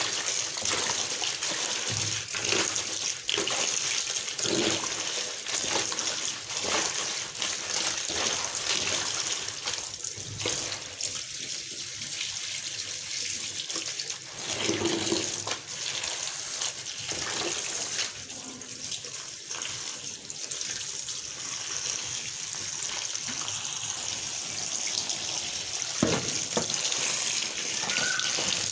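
Water running from a kitchen tap into a sink, steady throughout, with a few short knocks and clatters of things being handled in the sink.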